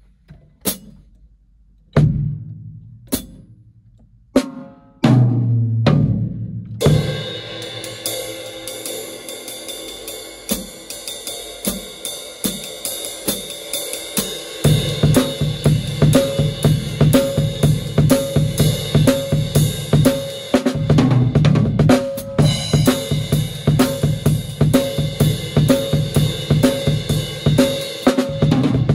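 Acoustic drum kit with Zildjian cymbals played with wooden sticks. It opens with a few separate hits that ring out, then settles into a steady beat under ringing cymbals. About halfway through the beat turns fuller and louder, with regular low drum hits.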